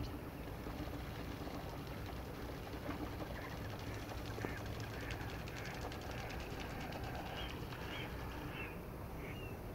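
A huge flock of common starlings flying over in a murmuration: a steady whoosh of many wings with a fine crackle, and short chirping calls standing out in the second half.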